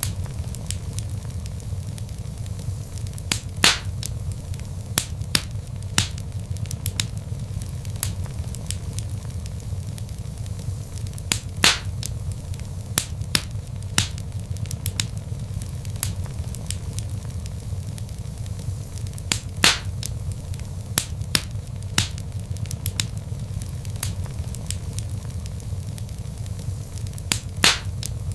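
Wood fire burning in a fireplace: a steady low rumble of flames with irregular sharp crackles and pops from the logs, a few of them louder snaps.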